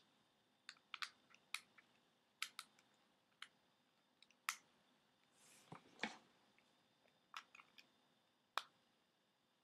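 Small hard-plastic toy and its batteries being handled: scattered sharp clicks and taps, about fifteen in all, with a brief rustle about six seconds in.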